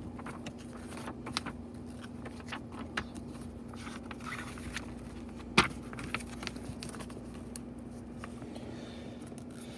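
Soft rustling and scattered light clicks of a paper service logbook being handled and its pages turned, with one sharper click about five and a half seconds in. A steady low hum runs underneath.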